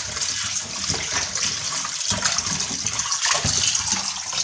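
Tap water running into a plastic bowl in a steel sink while hands rub and rinse fish pieces in it, with irregular splashing.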